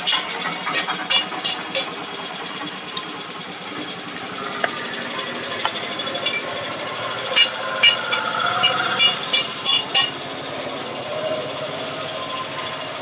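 Two runs of sharp taps, about two or three a second, over a steady background noise: one in the first two seconds, another from about seven to ten seconds in.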